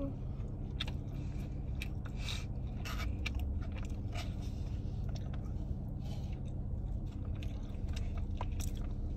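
Someone chewing and crunching food close to the microphone: irregular crackly bites and scrapes over a steady low hum.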